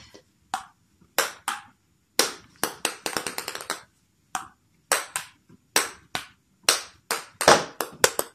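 Table tennis ball bouncing off a paddle and a wooden floor: a string of sharp clicks, some single and some in quick runs that close up as the ball settles.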